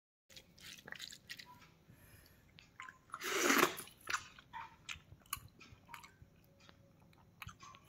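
Close-up eating sounds: a man chewing a mouthful of rice eaten by hand, with small wet mouth clicks and the squish of fingers working through the food. One louder rushing noise, lasting under a second, comes about three seconds in.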